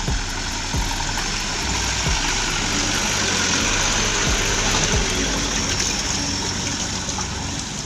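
Laden Mitsubishi Canter truck's diesel engine running under load on a muddy track, with a steady hiss of tyres and mud and a few scattered knocks. It swells louder in the middle.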